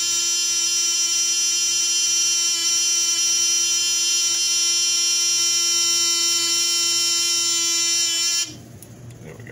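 Fire alarm horns on an old Simplex system sounding a continuous, loud buzzing tone, cut off abruptly about eight and a half seconds in.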